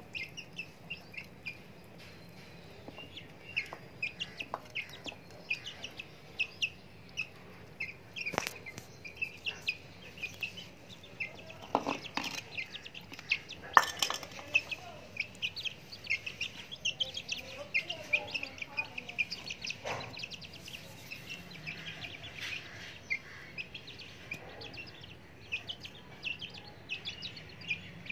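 Young chickens peeping over and over, short high peeps several a second, with a few sharp taps scattered through, the loudest about halfway through.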